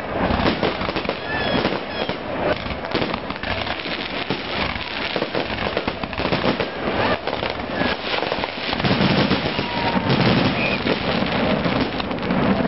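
Aerial fireworks display going off in quick succession: many bangs and crackles, one after another, with a steadier low rumble taking over for the last few seconds.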